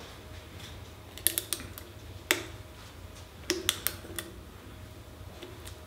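Dental implant ratchet clicking in short, irregular runs as it is swung back and forth, driving an implant into a model jaw.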